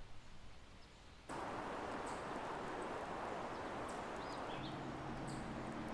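A few faint crackles from a small wood campfire, then, about a second in, a steady rush of wind on the microphone starts, with a few faint bird chirps.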